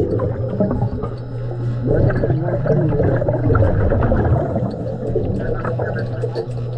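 Underwater gurgling and bubbling from a diver's breathing, over a steady low hum.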